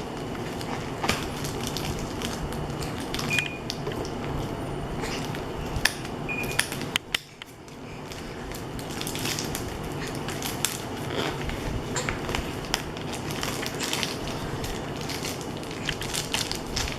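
Paper packaging of a mailed envelope being worked open by hand: irregular crackling, rustling and sharp clicks of paper and wrapping being handled and torn.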